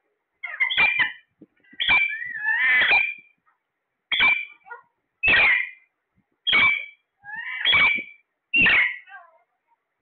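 Alexandrine parakeets calling: about eight loud squawks, each under a second long, coming roughly once a second.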